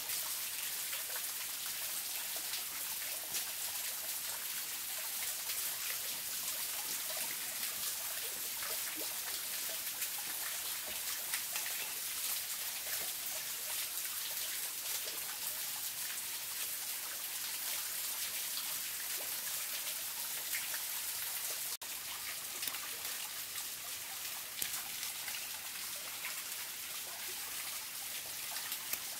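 Steady rain: a dense hiss of many small drops hitting surfaces, with a brief break about 22 seconds in.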